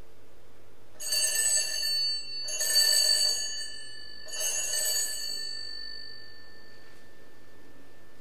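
Altar bells rung three times as the host is elevated at the consecration, each ring a bright shimmer of several high bell tones, the last left to fade away.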